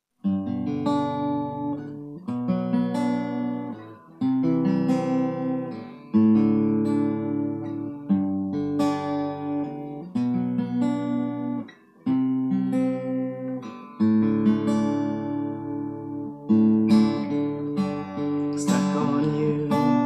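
An acoustic guitar plays a slow instrumental intro. A new chord is struck about every two seconds and left to ring.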